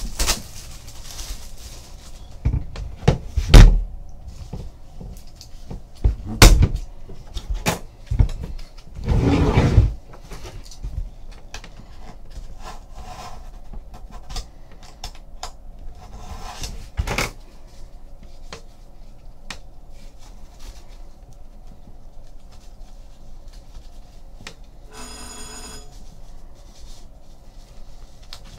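A hobby box being handled and opened on a table: a run of sharp knocks and thumps, then a second or so of rough scraping or tearing about nine seconds in, and a few lighter clicks. Near the end comes a short pitched ring lasting about a second.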